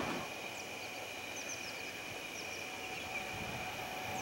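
Quiet outdoor ambience: a few short, high, falling bird chirps scattered through, over a steady thin insect drone.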